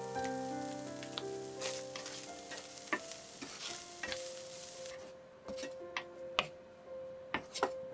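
Flaked canned herring sizzling in olive oil in a nonstick frying pan while a wooden spatula stirs it, tapping and scraping against the pan. The sizzle stops about five seconds in, leaving only the spatula's taps.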